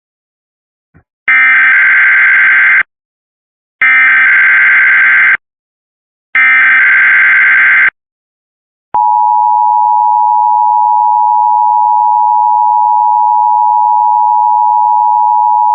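Emergency Alert System SAME header: three identical bursts of harsh digital data screech, each about a second and a half long. About nine seconds in, the steady two-tone EAS attention signal starts and keeps sounding, announcing the start of a new alert.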